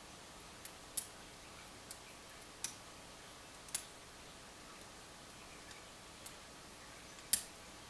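Pick and tension wrench working the pin stack of a lock with security pins: sparse, sharp metallic clicks as pins are lifted and set, about seven in all, the loudest about a second in and near the end.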